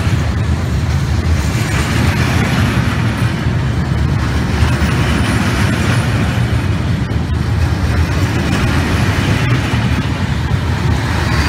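Train passing along the line: a steady, loud rumble of wheels and running gear that holds at much the same level throughout.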